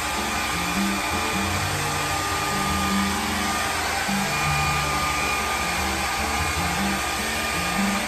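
Revlon hair dryer running on its high setting: a steady rush of blown air with a thin, faint high whine from the motor.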